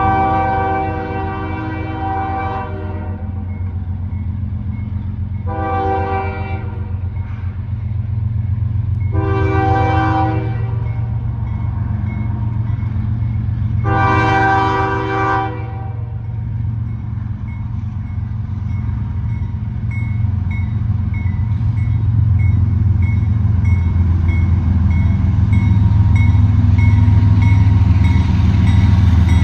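Freight train locomotive air horn, a multi-tone chime, sounding four blasts, the second one shorter, the warning for a grade crossing. Under it runs the low rumble of the approaching CSX ES40DC and GE Evolution diesel locomotives, which grows louder in the last several seconds as the train nears. A bell rings steadily from about two-thirds of the way in.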